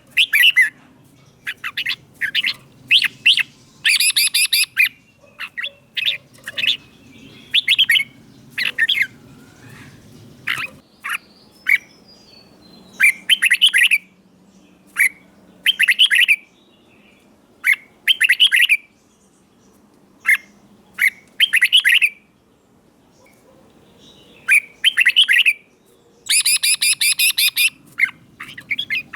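Red-whiskered bulbul singing: short bursts of bright, sweeping song phrases separated by brief pauses, with a harsher, fast rattling phrase about four seconds in and again near the end.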